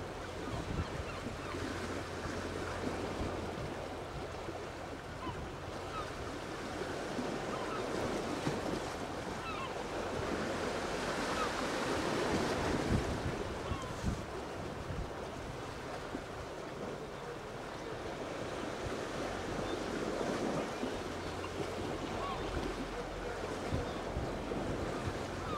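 Wind rushing over the microphone in uneven gusts, swelling to its loudest about halfway through, over a low steady hum.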